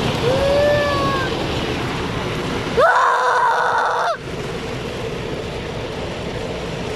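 Steady rumble and spray of an automatic car wash heard from inside the car. Near the start, wordless sliding vocal 'ooh' sounds rise and fall in pitch. About three seconds in comes a loud honk-like sound lasting just over a second, which cuts off suddenly.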